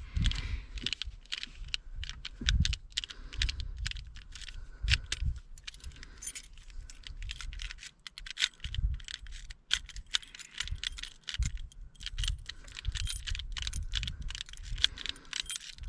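A key ring jangling, with irregular light clicks and rattles of plastic and metal, as the old ignition key switch is handled and worked after its wiring connector is released.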